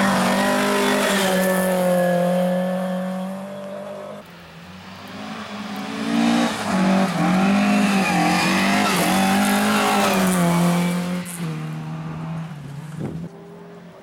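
Volvo 140-series rally car engines at high revs. One is held at steady revs for about four seconds, then, after a quieter moment, a second car accelerates hard, its revs rising and falling through gear changes before fading away near the end.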